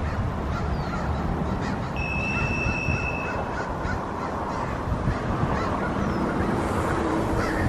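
American crows cawing while mobbing a bald eagle, over a steady outdoor rush. About two seconds in, a single high whistle holds steady for just over a second.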